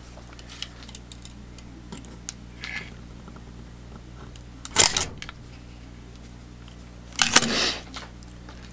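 Light clicks and knocks of hand tools being handled while a box-cutter blade is readjusted on a homemade wire stripper, with two short, loud rasps, one about five seconds in and one about seven seconds in, over a steady low hum.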